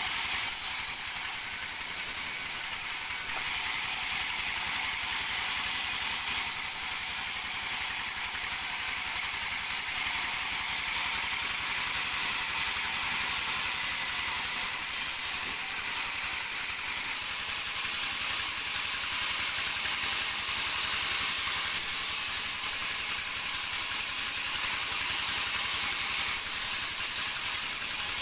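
Sawmill machinery running: a steady, high-pitched rushing machine noise with little low end, whose tone shifts abruptly a few times, including about three and six seconds in and again near the middle.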